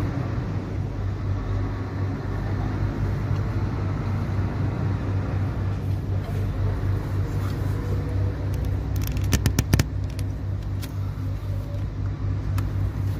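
Truck diesel engine idling: a steady low rumble with a fast, even pulse. About nine to ten seconds in, a quick run of sharp clicks cuts through it.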